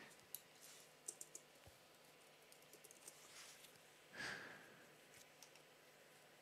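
Very faint computer keyboard typing: a few scattered light key taps, with a brief soft rush of noise about four seconds in.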